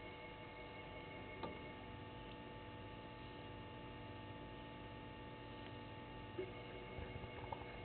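Faint steady hum made of several constant tones, with a soft click about a second and a half in and a few faint ticks near the end.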